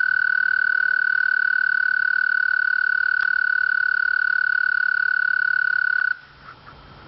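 A frog calling: one long, steady, high trill that stops abruptly about six seconds in.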